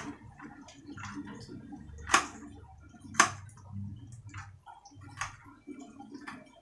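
Knife cutting fried tofu into cubes on a ceramic plate: soft cutting with a series of clicks where the blade strikes the plate, the two loudest about a second apart.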